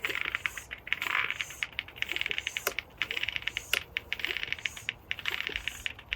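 Hand bicycle pump being worked in steady strokes, inflating a bike tire through a Presta-to-Schrader valve adapter. Each stroke gives a rattling, buzzing burst about a second long, about six in a row.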